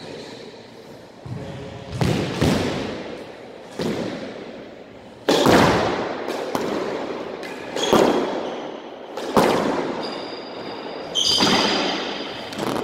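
Squash rally: the ball is struck by rackets and hits the court walls in a string of sharp, echoing smacks, about one every second or so. Short high squeaks come near the end, typical of shoes on the wooden court floor.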